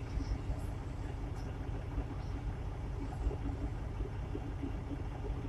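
Steady low rumble of a truck's diesel engine running, heard from inside the cab.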